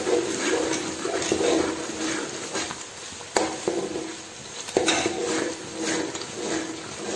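Slotted metal spoon stirring chopped tomatoes into onion paste frying in oil and ghee in a metal pot, scraping and clinking against the pot, with the fry sizzling underneath. Two sharper clinks of spoon on pot come a little past the middle.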